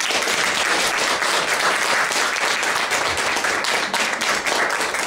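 Audience applauding: many hands clapping together, steadily.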